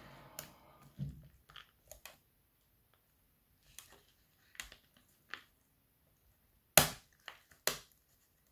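Plastic clips of a Dell Latitude E7240 keyboard trim bezel clicking and snapping loose as it is pried off by hand: about a dozen scattered sharp clicks, the loudest two near the end.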